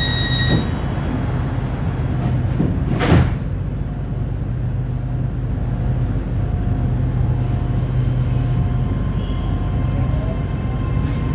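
Inside an SRT Red Line electric commuter train standing at a station. A steady low hum runs under everything, and a high warning tone stops about half a second in. The sliding doors shut with a single thud about three seconds in. Near the end a rising motor whine starts as the train begins to pull away.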